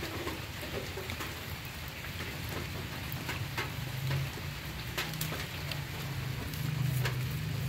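Steady rain falling, with scattered sharper drop hits close by, over a low steady hum that grows louder in the second half.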